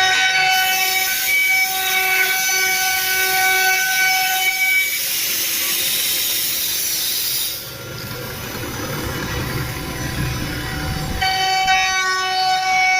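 CNC router spindle running with a steady high whine. For several seconds in the middle the whine drops out and a rushing noise takes its place, and the whine comes back near the end.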